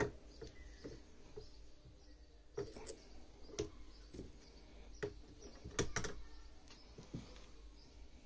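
Irregular light clicks and taps of small metal lathe parts being handled and fitted by hand on a small cast-iron bead lathe, about eight sharp knocks scattered through, over a faint steady hum.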